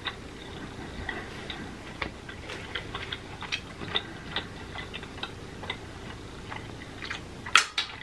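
Close-miked mouth sounds of someone chewing steak: a steady run of small wet clicks and smacks, several a second, with a louder burst of clicks near the end as a piece of steak is pulled off a wooden skewer and bitten.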